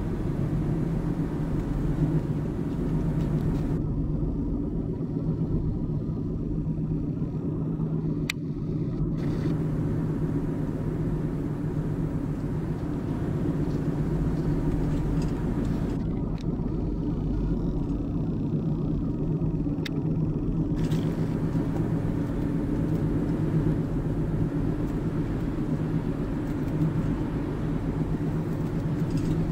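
Steady low rumble of road and engine noise heard inside a moving car's cabin. The higher hiss drops out twice for about five seconds, each time with a faint click.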